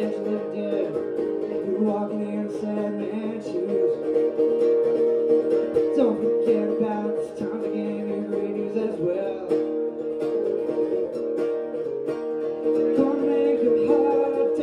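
Acoustic guitar strummed steadily, with a man singing along into a microphone, played live.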